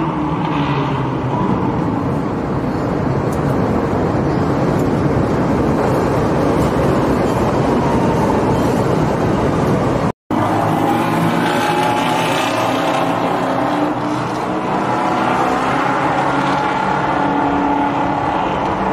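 Motorcycle and car engines running in street traffic, the engine tones rising and falling over a steady hiss. The sound drops out for a moment about ten seconds in and picks up again.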